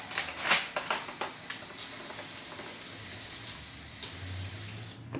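A few handling knocks, then a stream of water running steadily for about three seconds and stopping near the end.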